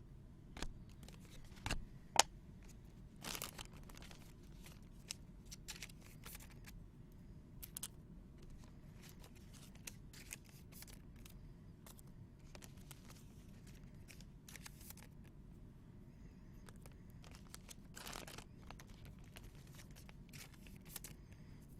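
Faint rustling and crinkling of trading-card pack wrappers and cards being handled, with scattered soft clicks and a few sharper ones.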